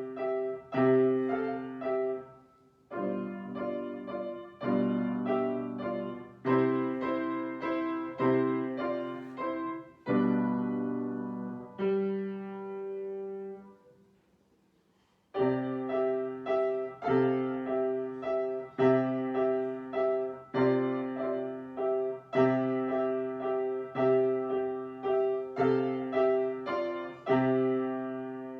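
Piano music: a slow piece of struck notes and chords that ring and fade. It breaks off briefly about halfway through, then resumes.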